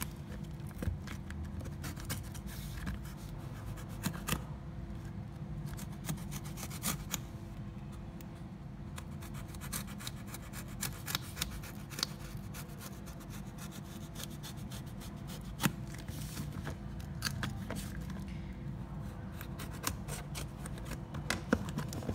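Utility-knife blade slitting packing tape and scraping along the seams of a cardboard box, heard as irregular scratches and small clicks.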